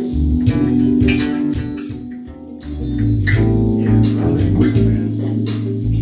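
Electric bass guitar playing in a loose live jam: low, sustained notes with plucked attacks, easing off briefly about two seconds in before picking up again.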